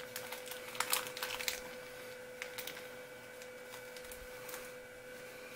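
Light crinkling and a few small clicks of small plastic hardware bags being handled, mostly in the first second and a half, then quieter, over a faint steady hum.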